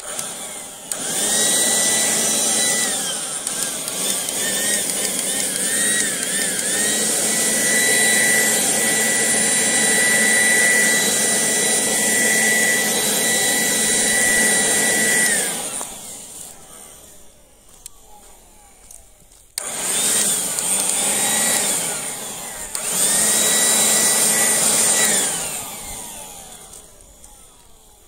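Battery-powered leaf blower running at full speed, a rush of air with a steady high whine. It runs for about fifteen seconds and winds down, then starts again abruptly after a short pause for two shorter blasts, the whine rising as it spins up and falling as it is released.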